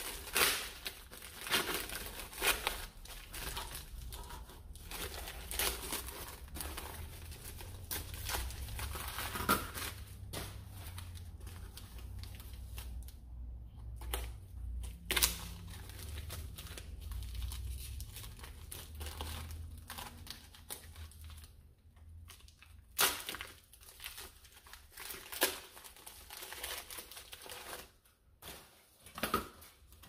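Plastic packaging bags crinkling and tearing as they are cut open with a hobby knife and the blaster magazines are pulled out. The rustling is dense through most of the stretch, then thins out to a few sharp knocks in the last third.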